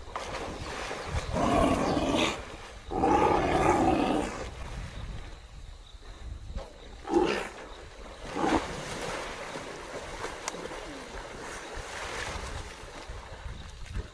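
Wild animal calls over splashing water: two loud calls of about a second each early on, then two short sharp ones a few seconds later.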